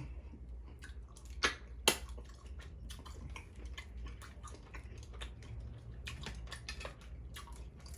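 Close-miked chewing of Dungeness crab in butter sauce: a run of small mouth clicks, with two sharper, louder ones about one and a half and two seconds in.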